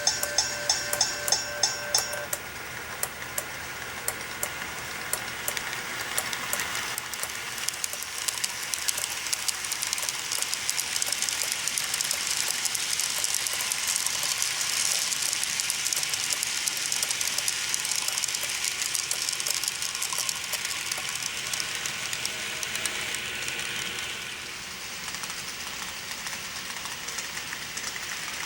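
Model train rolling along the track: a steady rushing sound full of fine wheel clicks that swells to a peak about halfway through and fades over the last few seconds. For the first two seconds a ringing bell-like tone repeats about four times a second.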